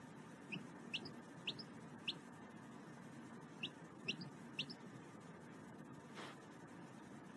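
A fluffy yellow chick peeping: seven short, high, rising peeps in two runs of four and three, with a pause of about a second and a half between them.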